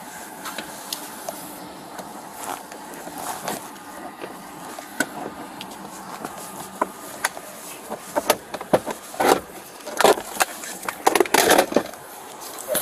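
Clicks, rustles and clunks of objects being handled and moved around inside a car cabin during a search. A busier run of louder knocks and scrapes comes in the last few seconds.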